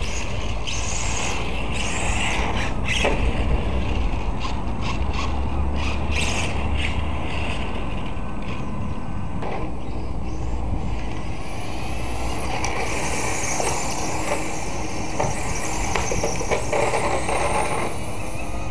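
Radio-controlled touring car with a Novak 13.5-turn brushless motor driving on block paving: the motor's high whine rises as it accelerates, about twelve seconds in and again near the end, over a steady low rumble.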